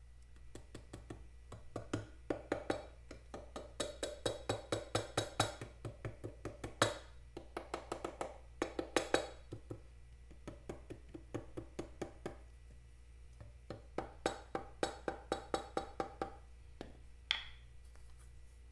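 Ratcheting screwdriver clicking in quick, even runs with short pauses as the screws of the Vincent Rapide's aluminium timing cover are backed out. A short squeak near the end.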